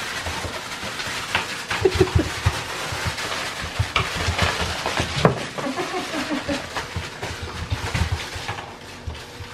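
French Bulldog puppies at play: one tugs at a soft fabric toy, with rustling and scuffling, scattered small knocks, and a few short puppy grunts.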